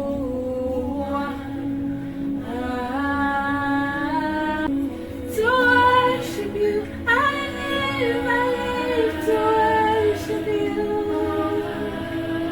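Music: a woman singing long held notes that slide between pitches, over a steady low accompaniment.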